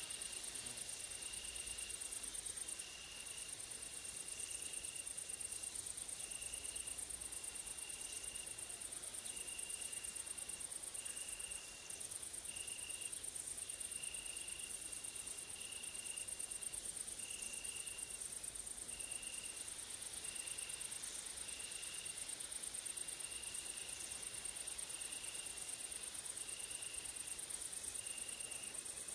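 Grasshoppers and crickets stridulating in summer woodland: a steady, very high-pitched insect trill underneath a lower chirp that repeats about once a second.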